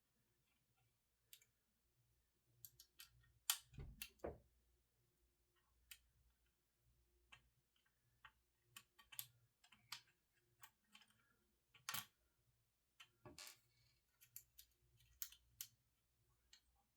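Faint, scattered clicks and taps of a GTX 980 Ti graphics card being taken apart by hand, an Allen key working on its screws and small metal parts being handled, with a few sharper knocks among them.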